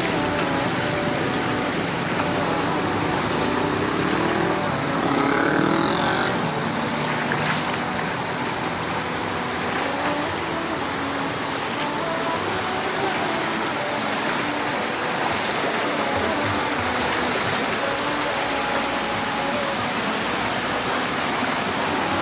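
Floodwater rushing and churning around posts and pilings, a loud, steady rush of water.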